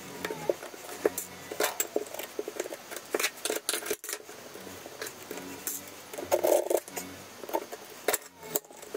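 Intermittent clicks, taps and light scrapes of porcelain floor tiles and a small metal hand tool as tiles are set and adjusted in thinset, with a louder clatter about six and a half seconds in.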